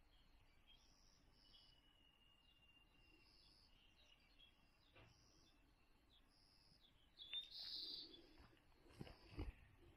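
Faint bird calls from the surrounding woods: short high notes repeated at an even pace, with one louder call about seven seconds in. A few soft knocks come near the end.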